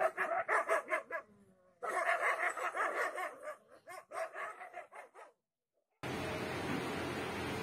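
Dogs fighting, barking fast and repeatedly in dense runs that break off for a moment about a second in and stop about five seconds in. From about six seconds in, a steady background hiss.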